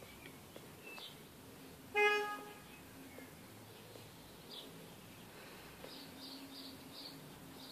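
A vehicle horn gives one short, steady-pitched toot about two seconds in, over faint scattered bird chirps.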